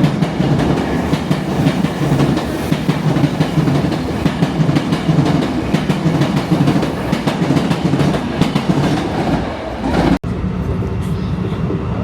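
A train running on the rails, a dense rumble with the rhythmic clatter of wheels over rail joints. About ten seconds in, the sound cuts off abruptly and is followed by a steadier, quieter hum.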